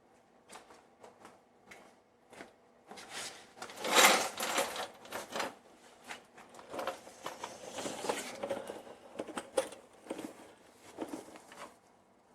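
Metal wrenches clicking and clattering against the oil cooler line fittings as they are worked loose: scattered clicks at first, then a busy run of rapid clicks and scrapes from about three seconds in, loudest near four seconds.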